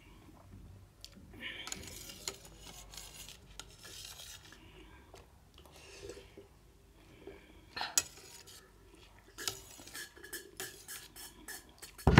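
A metal spoon scraping and clinking on a stainless-steel plate while rice is eaten, in scattered strokes, with a sharp click about eight seconds in and a loud knock at the very end.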